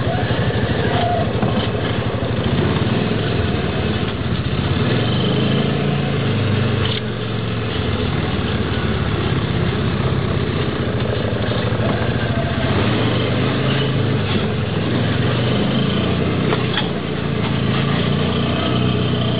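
All-terrain three-wheeler (ATC) engine running continuously on an off-road trail, its pitch rising and falling as the throttle is worked. It eases off briefly twice.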